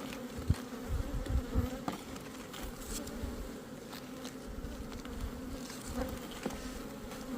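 Honeybees buzzing around an open hive: a steady, even hum, with a few soft knocks in the first couple of seconds.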